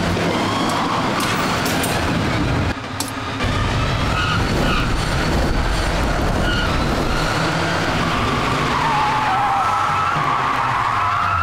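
Small hatchback engines revving with tyres squealing and skidding on a concrete floor during hard reverse manoeuvres on Dunlop Street Response tyres. A long, wavering tyre squeal runs from about eight seconds in.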